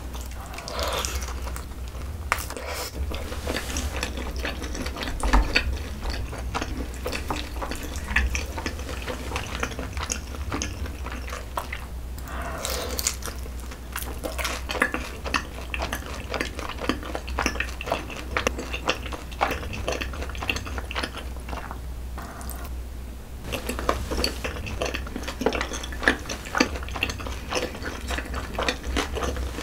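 Close-miked eating: wet chewing and mouth noises from spicy rose-sauce braised chicken with soft glass noodles and ramen, with a noodle slurp about halfway through.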